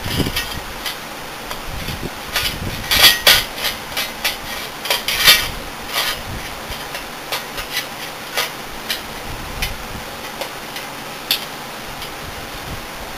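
Clicks, taps and knocks of hard drives and drive-bay hardware being handled inside a desktop PC, with a burst of louder clatter about three to five seconds in.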